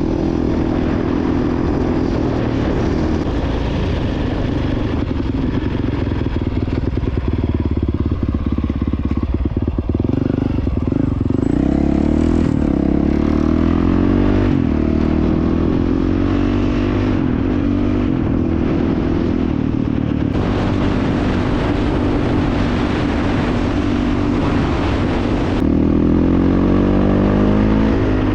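2022 Honda CRF450X's single-cylinder four-stroke engine running under way on a dirt bike, its pitch rising and falling with the throttle over a steady rush of noise.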